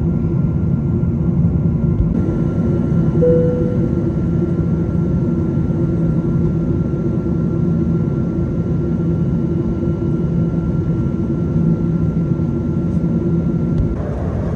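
Steady roar of a Boeing 777-200ER in flight, heard from inside the cabin by the wing: the GE90 engines and the air rushing past the fuselage, with a faint steady whine above it. A short tone sounds about three seconds in.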